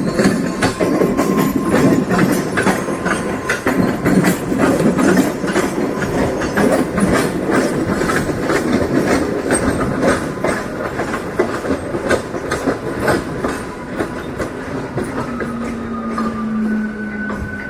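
Mumbai suburban local train running on its track: wheels clattering over rail joints in a rapid, irregular run of clicks over a steady rumble. A steady tone joins near the end.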